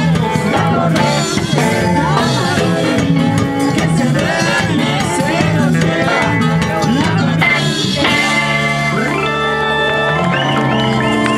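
Live band playing Latin dance music, with electric guitar and hand percussion under a woman's sung lead. About eight seconds in the music settles into long held notes.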